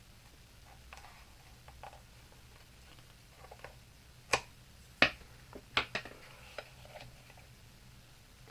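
Handling of paper die-cut pieces on a craft table: a few sharp taps and clicks, the loudest about four and five seconds in, over quiet room tone.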